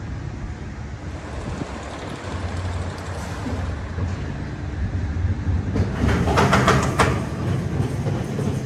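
Roller coaster car running on steel track, a steady low rumble with a burst of metallic clattering about six seconds in.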